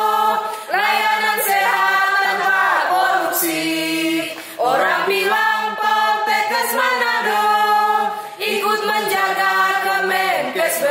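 A group of voices singing a yel-yel cheer song together, in short sung phrases with brief breaks between them.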